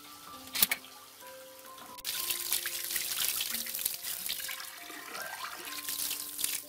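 Water gushing from a hose pipe and splashing onto stone as a ceramic cup is rinsed under it, starting suddenly about two seconds in. A single sharp knock comes shortly before the water starts.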